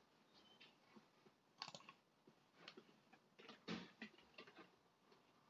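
Near silence: quiet room tone with a few faint, short clicks.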